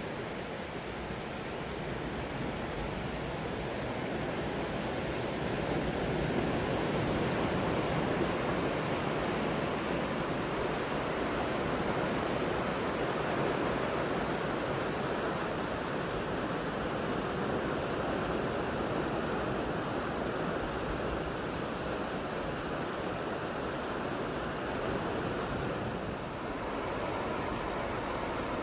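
Steady wash of sea surf breaking along a shallow reef shore, with some wind; it swells a little over the first few seconds and then holds even.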